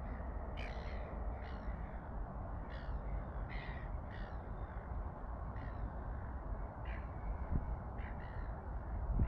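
A bird giving about nine short calls, spaced irregularly through the stretch, over a steady low rumble.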